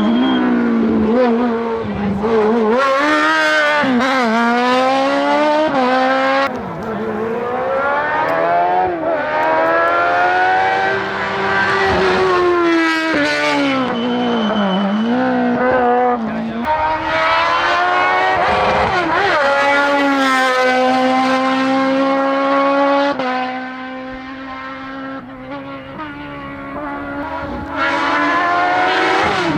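Racing car engine at full throttle, revs climbing again and again through the gears, with dips as it backs off and brakes. It fades somewhat in the back part and comes back loud near the end.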